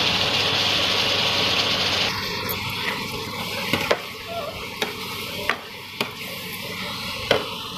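Mushrooms and onions sizzling in hot masala gravy in a pan, loud for about the first two seconds, then a metal spatula stirring and scraping with several sharp knocks against the pan.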